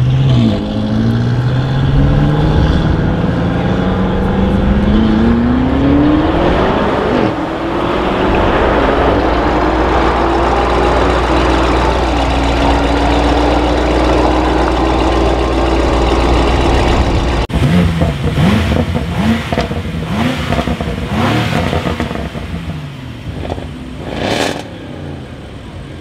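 BMW M5 F90's twin-turbo V8 accelerating hard from a standing start, its engine note rising through the gears with a brief drop at each upshift, twice, a few seconds apart. About two-thirds of the way in the sound cuts off abruptly to a quieter stretch of irregular clattering.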